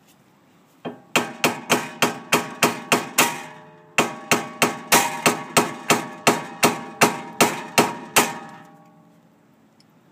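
Hammer blows driving a new splined wheel stud through a car's wheel hub: two quick runs of strikes, about three a second, each ringing briefly, with a short pause about four seconds in. The stud is working its way through and nearly seated.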